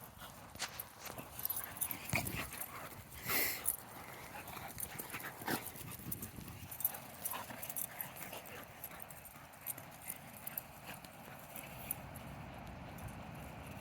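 A group of dogs playing and moving about: scattered paw steps and scuffling, with a short higher-pitched sound about three seconds in.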